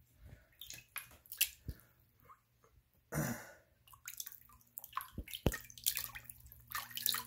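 Water splashing and dripping in a bowl as rockwool cubes are dunked by hand and lifted out to soak, in short irregular splashes with a few light knocks.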